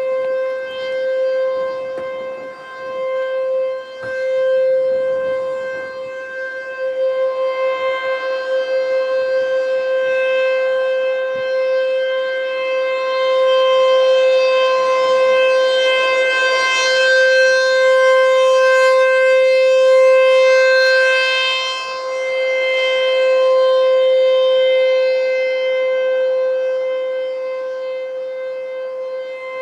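ASC T-128 rotating mechanical warning siren sounding a steady single-tone full alert at full speed. It holds one constant pitch, and its loudness swells and fades over several seconds as the rotating head turns toward and away from the listener.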